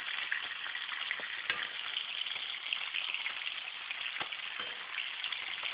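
Flounder fillets sizzling in hot oil in a frying pan, a steady crackling hiss. A spatula clicks against the pan a couple of times as it works the fillets loose from the bottom.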